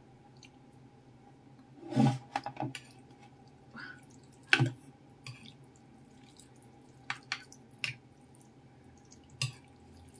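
A metal fork clinking against a ceramic bowl while stirring and lifting noodles and meatballs in soup. About eight sharp clinks are scattered through it, the loudest about two seconds in and about four and a half seconds in, with soft wet sounds of the broth between them.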